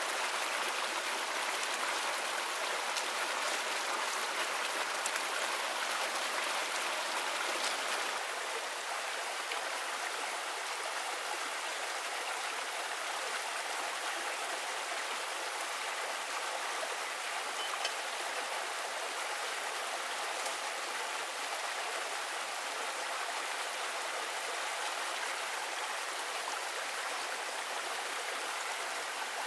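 Shallow stream running fast over rocks in a small cascade, a steady rush of water, a little quieter from about eight seconds in.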